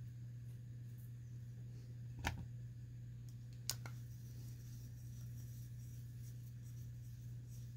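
Two light clicks from small parts being handled, about two seconds and three and a half seconds in, over a steady low hum.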